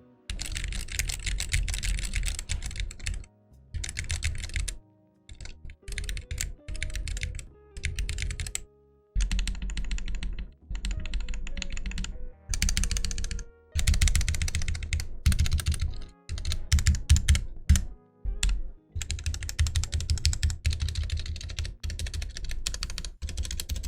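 Typing test on a Gamakay K61 mechanical keyboard with stock, unlubed Gateron Yellow linear switches: fast runs of key presses broken by short pauses.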